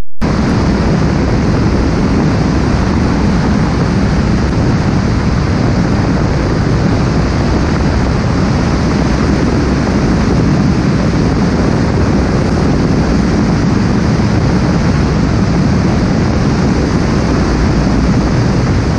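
Steady wind rush on a camera mounted under the wing of a single-engine light aircraft in flight, with the engine and propeller mixed into a constant low drone.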